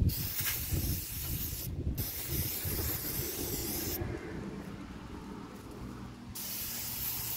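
Aerosol brake cleaner sprayed in three hissing bursts, the middle one the longest, cleaning around the brake caliper's pistons once the old pads are out.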